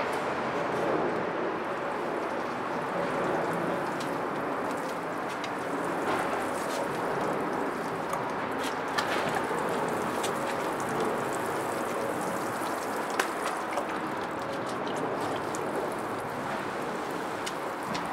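Water showering steadily from a watering can's rose onto soil and leaves, with a few light ticks.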